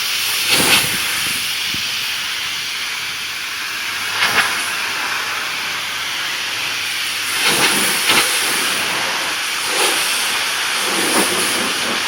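Pressure washer spray hissing steadily on wooden deck boards, with brief louder surges several times as the spray moves.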